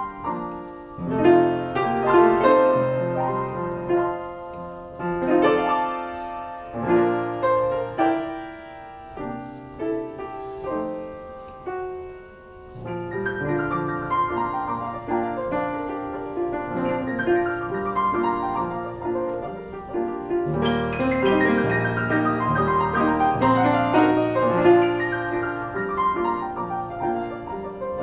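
A 1924 Marshall & Wendell Ampico reproducing upright piano playing a ballad from a paper roll. A softer passage a third of the way in swells louder, and deep bass notes fill in during the last third.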